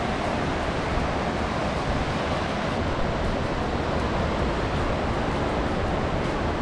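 Steady rush of ocean surf washing up on a sandy beach, with wind blowing.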